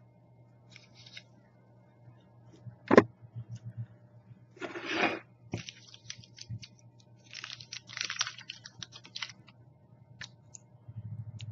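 A person biting and chewing a piece of soft licorice close to the microphone, in small crackly bursts, with one sharp knock about three seconds in.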